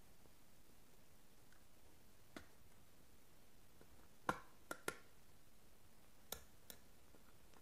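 A few light, sharp clicks of a screwdriver against the brass terminal screws and plastic of a switch board as a wire is fastened. One click comes about two seconds in, the loudest three in quick succession about four to five seconds in, and two more a little after six seconds, with near silence between them.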